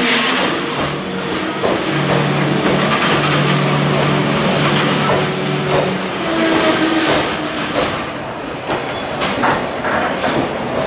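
Freight train's Koki container flat wagons rolling slowly past while braking to a stop, brakes squealing in steady tones over the wheel rumble. Sharp clanks come in the last few seconds as the train slows.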